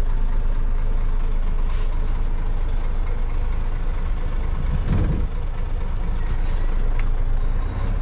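Bus engine and running noise heard from inside the passenger cabin: a steady low rumble, with a brief louder surge about five seconds in.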